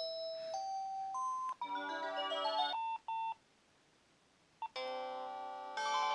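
Samsung C100 mobile phone playing its preloaded ringtones through its small speaker: an electronic melody of rising notes and then chords ends about three seconds in, and after a short pause another ringtone starts and grows louder.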